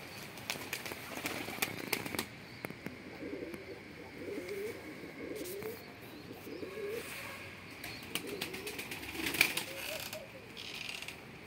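Domestic pigeons cooing over and over, with wings flapping and a few sharp wing claps in the first couple of seconds and again near the end.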